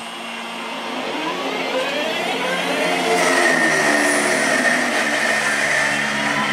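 London Midland Cross-City Class 323 electric multiple unit pulling away, its traction motors whining in a pitch that climbs steadily and levels off into a steady high tone about three seconds in, getting louder as it accelerates.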